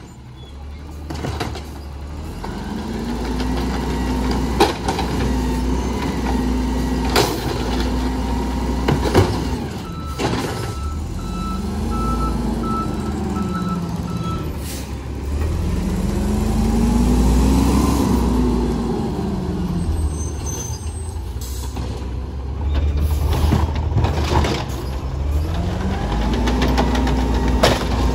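Automated side-loader garbage truck at work: its diesel engine revs up and falls back about four times as it drives the hydraulic arm, with sharp knocks and bangs of carts being handled and dumped. A run of backup beeps sounds in the middle.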